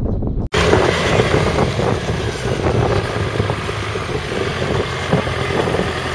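Engine of an engine-swapped 1952 Fordson Major tractor running steadily, after a brief break in the sound about half a second in.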